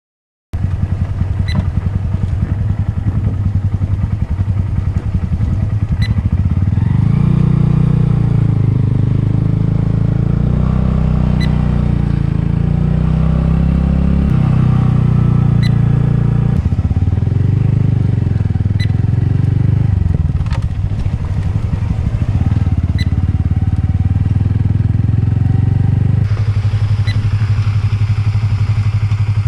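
Honda Grom's small single-cylinder four-stroke engine running under way, its note rising and falling with the throttle through the middle and steadier near the start and end.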